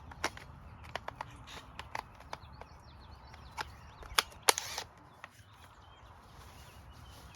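Irregular sharp knocks and clicks from hand work on a wooden frame, with a loud pair of knocks a little past four seconds in.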